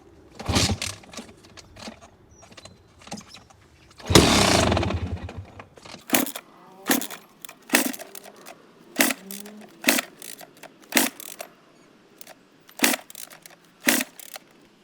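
Repeated kick-start attempts on a KTM 250 SX two-stroke dirt bike: a sharp clunk about once a second, with a longer noisy burst about four seconds in, and the engine does not catch and run.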